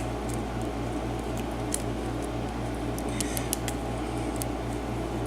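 A few faint, scattered metallic clicks and scrapes as a small tool works the retaining clip off the back of a lock cylinder, over a steady low hum.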